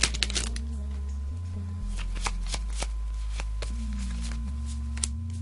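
Yu-Gi-Oh trading cards from an opened booster pack being flicked through by hand: a handful of short, sharp snaps of card against card, irregularly spaced.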